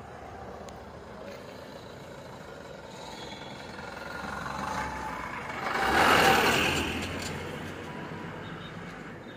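A small goods truck passing close by on the road: its noise builds over a few seconds, is loudest about six seconds in, and fades as it goes away.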